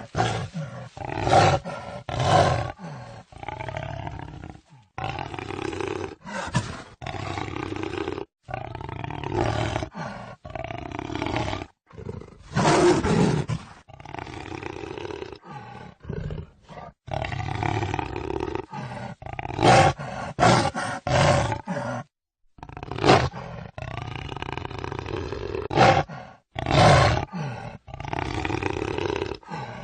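Jaguar roaring: a run of loud, rough calls, some drawn out and some short and repeated about once a second, broken by several sudden brief gaps.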